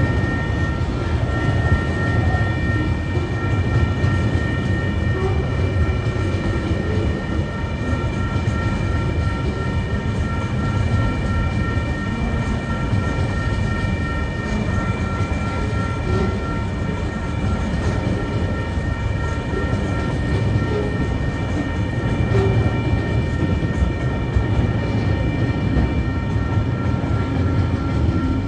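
Freight train wagons rolling steadily past at a level crossing: a continuous heavy rumble of wheels on rail, with steady high-pitched ringing tones running over it.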